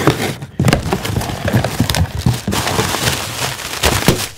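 Cardboard shipping box being pulled open, then plastic packaging crinkling and rustling as it is handled and pulled out.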